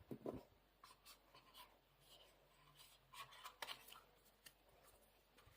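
Faint handling noises of the cube's packaging being opened: short scratches and light taps just after the start and again at around three and a half seconds, quiet in between.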